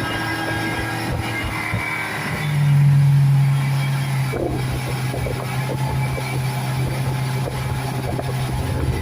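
Speedboat engine running. About two and a half seconds in its note comes up louder and then holds steady, over a constant hiss of wind and water.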